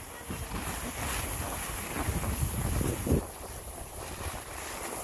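Wind rushing over the microphone of a camera carried by a skier moving downhill, mixed with the hiss of skis sliding over packed snow. It grows louder through the first three seconds, then drops back.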